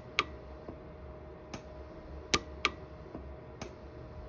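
Orion 150s pulse arc micro TIG welder firing single weld pulses onto a silver ring: about five sharp snaps at uneven intervals, two of them close together near the middle, over a faint steady hum.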